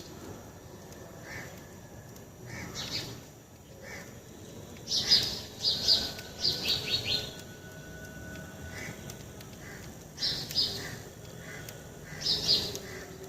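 Small birds chirping in sharp, high notes, with a quick run of falling chirps about five seconds in and further bursts later on.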